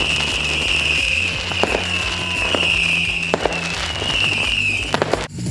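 Fireworks going off, with scattered sharp bangs and crackles, a cluster of them near the end, and a steady high whistle throughout. Background music with a steady bass line plays under them.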